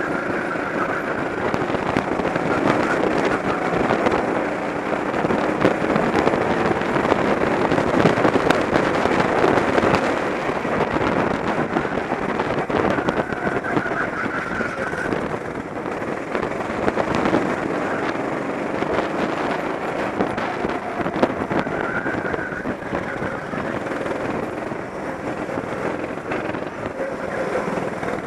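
Go-kart engine heard from a camera mounted on the kart, running at speed, its pitch rising and falling with the throttle through the corners. Other karts run close ahead.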